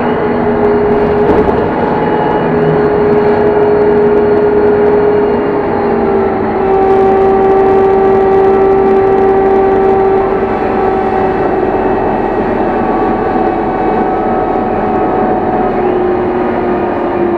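City bus running, heard from on board: a steady drone of engine and drivetrain with a whine that shifts pitch about six seconds in and falls away near the end.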